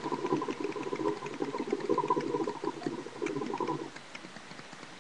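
Hookah water bubbling steadily as smoke is drawn through the hose in one long pull, which stops about four seconds in.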